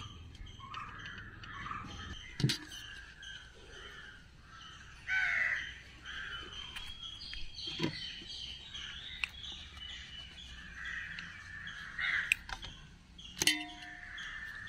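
Crows cawing repeatedly, one call about 5 seconds in louder than the rest, with a few sharp taps.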